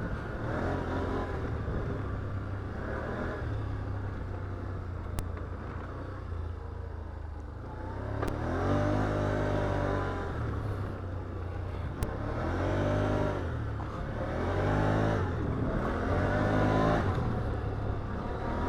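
Can-Am Outlander ATV's V-twin engine pulling along a trail, its pitch rising and falling several times as the rider works the throttle, with a couple of sharp clicks.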